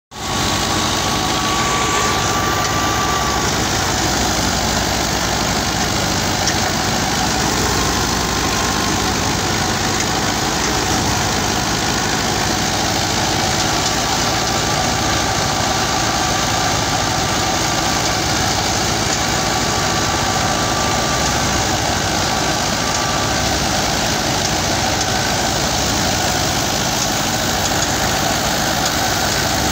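Fiat 640 tractor's four-cylinder diesel engine running steadily under load, driving a thresher through its belt pulley, with the thresher's own hum and rattle mixed in. A faint thin whine comes and goes over the noise.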